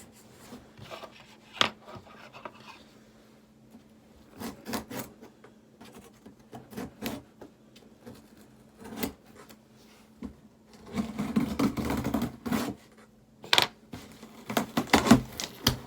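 A cardboard subscription box and its packaging being opened and handled: scattered taps, knocks and rubbing scrapes, with a longer stretch of scraping and rustling about eleven seconds in and a cluster of knocks near the end.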